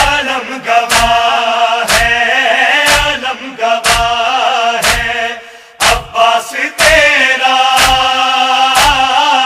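Men's voices chanting a Shia nauha (mourning lament) together, kept in time by sharp chest-beating (matam) strikes about once a second. The chanting drops away briefly about five and a half seconds in, then resumes.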